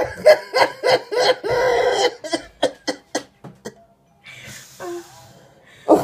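A man laughing hard in rapid bursts. The bursts get shorter and turn into short breathy gasps, then die away about three and a half seconds in, and loud laughing starts again right at the end.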